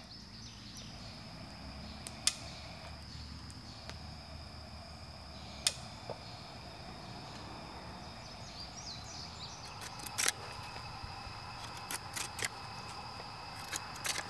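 Steady high-pitched drone of insects in summer woodland. Over it come scattered sharp clicks and taps as a camp lantern is handled and lit, with a quick cluster of them near the end.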